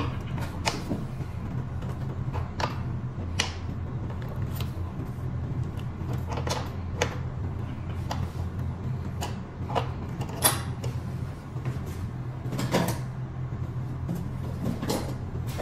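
Scattered clicks and knocks of hands and tools working on an electric scooter's front fork, fender and brake hardware, with a sharper knock about ten seconds in, over a steady low hum.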